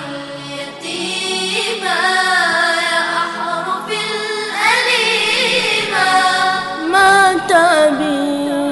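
Background music: voices singing long, wavering held notes without words, an unaccompanied vocal intro to a song.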